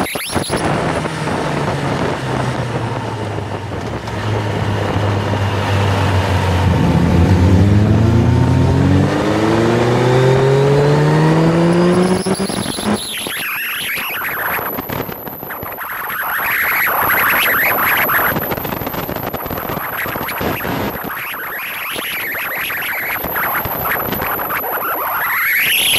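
Motorcycle engine heard from the bike itself under heavy wind rush, its pitch climbing steadily for about five seconds as it accelerates, then falling away about halfway through, after which wind noise dominates with two long swells.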